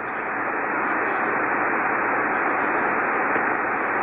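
Shortwave receiver hiss: open 75-meter band noise through a Yaesu FT-1000MP Mark-V on lower sideband, with no station talking. The hiss rises over the first second, then holds steady.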